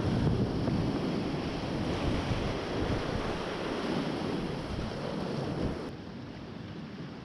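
Rushing whitewater of a creek rapid heard from a packraft running it, a dense, heavy rush with a low rumble on the microphone. About six seconds in it drops to a quieter, duller rush as the water calms.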